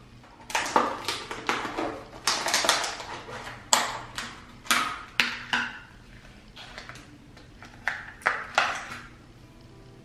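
Aluminium espresso capsules rattling and clinking against each other and a clear plastic tub as it is tilted and shaken: a run of irregular sharp clinks with a short ring, pausing briefly past the middle and starting again near the end.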